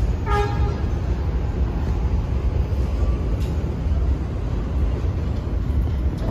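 Steady low rumble of a subway train standing at the platform with its doors open, with a short burst of pitched tones about half a second in.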